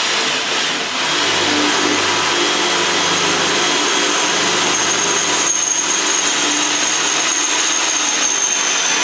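Cordless drill running steadily under load as it bores a hole through the steel electrics tray welded into a motorcycle frame's rear hoop. A thin high whine comes up over the drilling noise in the second half.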